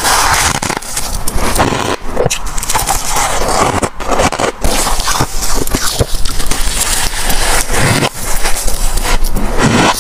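Close-miked crunching of soft freezer frost and ice, a dense run of crackling and scraping with many small clicks and a few brief pauses.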